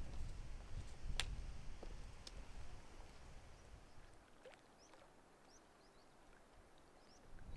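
Outdoor mountain ambience: a low wind rumble on the microphone with two sharp clicks, then from about four seconds in a quieter stretch with faint, sparse high bird chirps.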